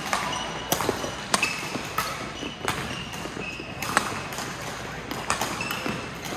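Badminton rackets hitting a shuttlecock: sharp cracks at irregular intervals, several a second, mixed with short squeaks of court shoes on the floor, in a large echoing hall with voices in the background.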